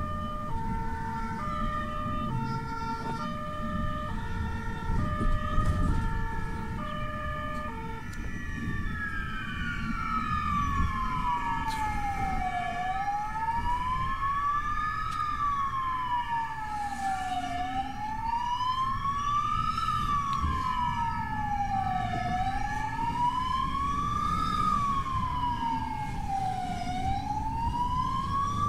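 Emergency sirens of an ambulance and its police motorcycle escort in traffic. A two-tone siren alternates between a high and a low note, then about eight seconds in a wail siren takes over, sweeping slowly down and up in pitch about every four to five seconds. Engine and road noise run underneath.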